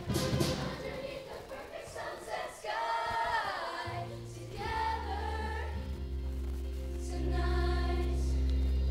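A middle school show choir singing a song in phrases, with instrumental accompaniment holding steady low bass notes that swell from about halfway through.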